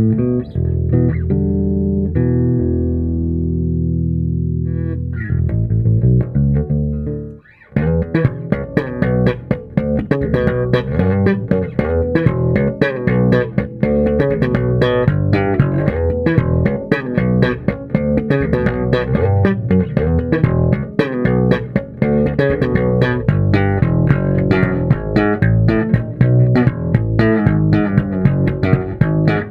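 Electric bass, a 1985 Japanese-made Fender Precision Bass with a maple neck, played solo through a bass amp and a GK 4x10 cabinet. It opens with a few long ringing notes, then after a brief gap goes into a fast, busy run of plucked notes with sharp, bright attacks.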